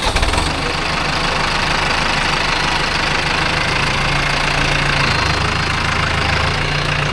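Tractor diesel engine just after starting: it surges unevenly for a moment, then settles into a steady, loud run.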